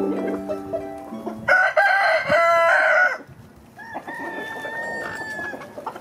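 Swedish Flower rooster crowing: one loud crow about a second and a half in, then a second, quieter and longer crow around four seconds in. Plucked harp music fades out just before the first crow.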